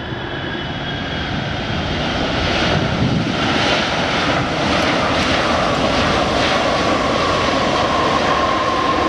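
Boeing 777-300ER's twin GE90 turbofan engines on the landing roll just after touchdown: a jet roar that grows louder over the first three seconds, then holds steady, with a high steady whine coming in over the second half.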